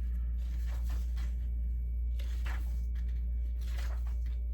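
Paper pages being turned and rustled as a booklet is leafed through, in a few soft brushes over a steady low electrical hum.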